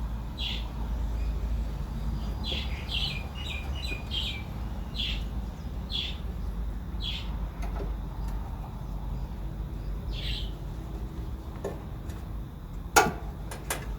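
A bird chirping repeatedly, short falling calls about a second apart with a quick run of several between two and four seconds in, over a steady low rumble. One sharp click near the end is the loudest sound.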